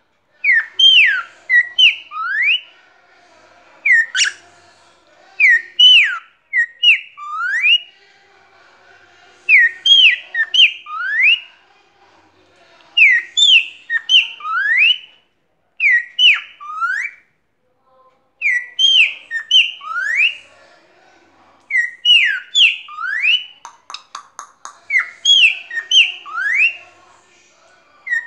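Cockatiel whistling its song: short phrases of three or four sweeping whistled notes, repeated every few seconds. A quick run of clicks comes about three-quarters of the way through.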